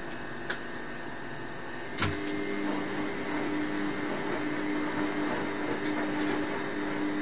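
Steady machine hum with hiss, like a small motor running. A knock comes about two seconds in, after which the hum grows a little louder and a clear tone stands out in it.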